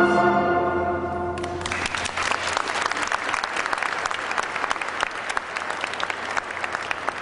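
Music ends on held notes, and about a second and a half in an audience breaks into applause, which goes on steadily and eases off slightly toward the end.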